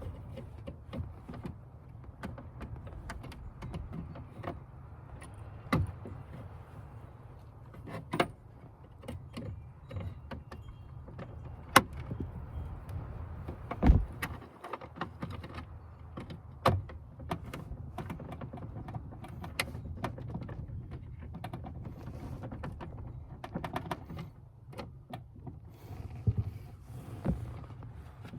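Hands-on mechanical work: irregular clicks, taps and rattles of parts and tools being handled, with a few sharper knocks, over a low steady rumble.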